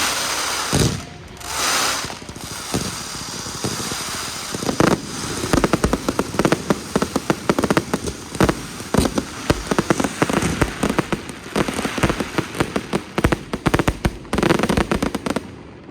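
Fireworks display: a dense, fast run of bangs and crackling, with hissing swells near the start and again near the end. It stops abruptly just before the end.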